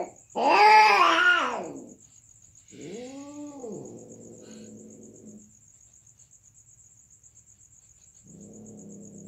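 Mating cats: a loud caterwaul rising and falling in pitch in the first two seconds, the scream typical as the pair separate at the end of mating. Then a quieter yowl that sinks into a low, drawn-out growl, and another low growling yowl near the end, over a steady high chirr of crickets.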